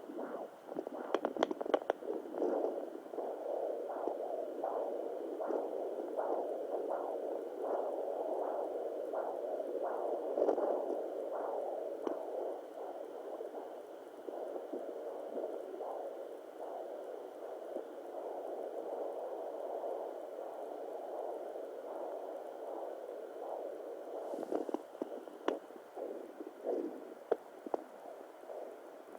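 Handheld fetal Doppler picking up a rhythmic whooshing pulse, a blood-flow heartbeat sound over a steady hiss. Near the end a few sharp scrapes and clicks break in, as the probe shifts on the belly.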